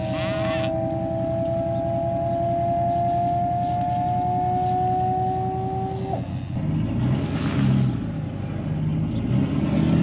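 Truck engine idling, with a steady whine over it that rises slightly in pitch and cuts off about six seconds in.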